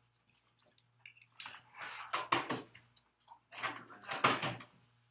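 Index cards and a plastic card box being rummaged through: two spells of rustling and clattering, the first about a second and a half in, the second about four seconds in.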